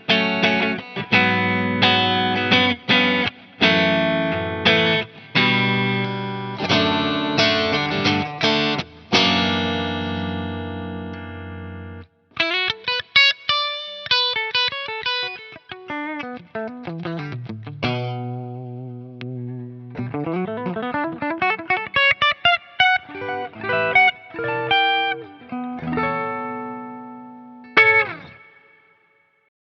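SLX Hawk Classic Lite 22 HSS electric guitar being played through effects. First come rhythmic struck chords for about twelve seconds, then single-note lines with slides that fall and rise in pitch. It ends on a chord that rings and fades out.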